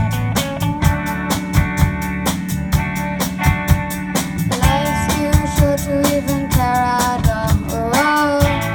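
A band playing a rock song: a drum kit keeps a steady beat under guitar and a melody line.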